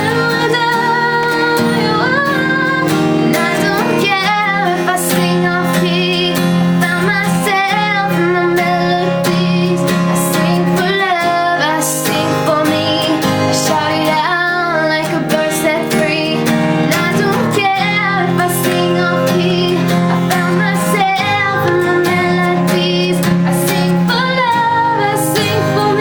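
A woman singing a pop ballad over acoustic guitar accompaniment.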